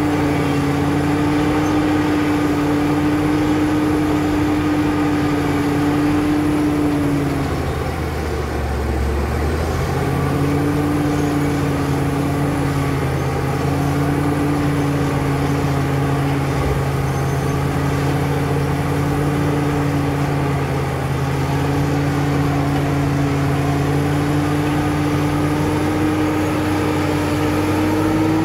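CAT D7 bulldozer's diesel engine running steadily with a faint high whine over it. About eight seconds in, its pitch and loudness sag for a couple of seconds, then pick back up.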